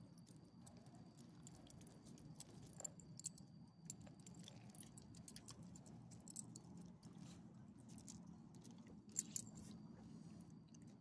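Near silence with faint clinks and ticks of a small dog's metal collar tags and leash clip as it licks and eats chicken from a hand, a few sharper clinks about three seconds in and again about nine seconds in, over a low steady hum.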